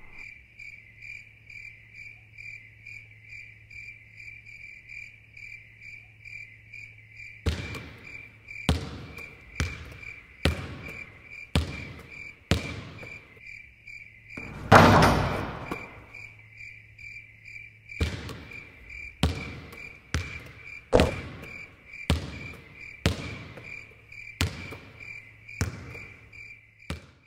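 Crickets chirping steadily in a hushed gym, the old gag for dead silence. From about a quarter of the way in, a basketball is bounced on the hardwood floor about once a second, with one louder, longer thud about halfway through.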